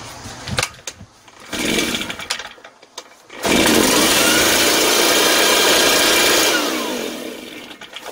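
Shindaiwa EB803 engine blower: after some clatter and a pull on the starter, the engine fires about three and a half seconds in and runs loudly with the fan rushing for about three seconds, then winds down with falling pitch and stops. It fires only briefly, which the owner takes to mean the engine itself is sound and the fault lies in the carburetor.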